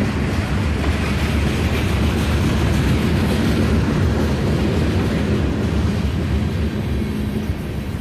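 Freight train of tank cars and covered hoppers rolling through a grade crossing: the steady rumbling noise of steel wheels on the rails, easing slightly near the end as the last cars pass.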